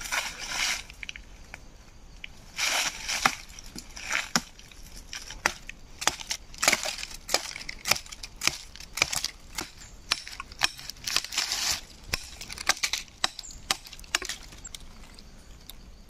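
Machete blade chopping into a dead log: a long run of sharp, irregular chops. Near the start, dry leaves crunch underfoot.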